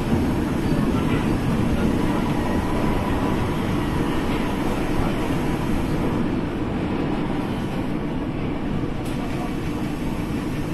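Düsseldorf SkyTrain suspended-monorail car running along its elevated track: a steady low rumble.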